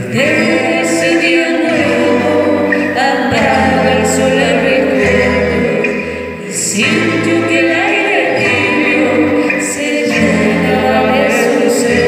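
Live concert music: voices singing a melody over an accompaniment of held low notes that change every couple of seconds.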